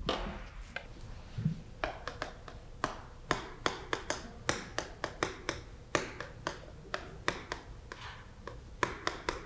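Chalk writing on a blackboard: a run of sharp, irregular taps and short scrapes as each stroke is made, about two or three a second.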